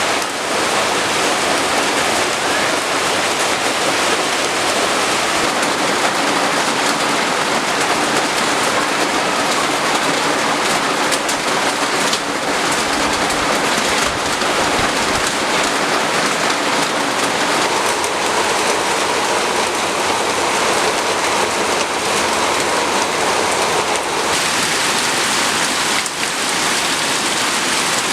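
Steady rain falling on hard surfaces.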